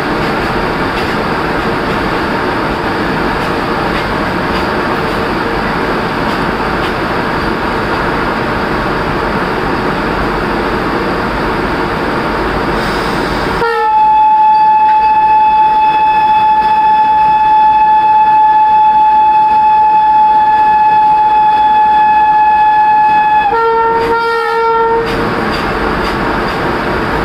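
A WAP-7 electric locomotive's horn sounds one long steady blast of about ten seconds from about halfway through, then a brief second note at a slightly different pitch, over the rolling noise of the departing train, which is heard alone before and after the horn.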